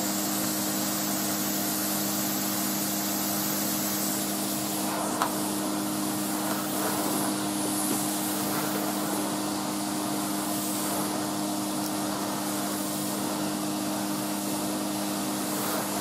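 Numatic Henry HVR200A cylinder vacuum cleaner running on its low power setting, its floor tool pushed across carpet: a steady motor hum with two held tones under rushing air.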